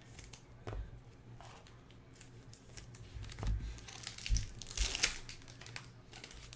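Rustling, crinkling and tearing of trading-card packaging and wrappers as cards are handled, in short irregular bursts that get busier about halfway through.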